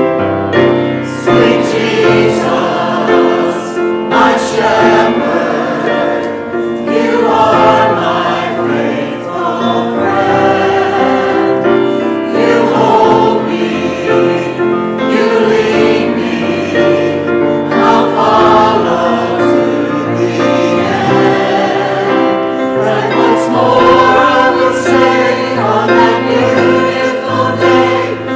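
Mixed church choir of men's and women's voices singing part of a cantata.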